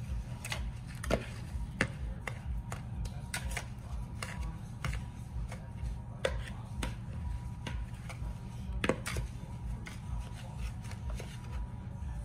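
Wire whisk tapping and scraping against a plastic mixing bowl as snow ice cream is stirred, in irregular clicks a few times a second, over a steady low hum.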